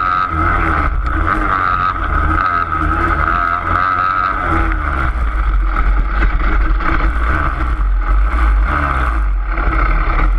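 Motocross motorcycle engines running steadily at high revs, their pitch wavering, over a low rumble of wind on the microphone.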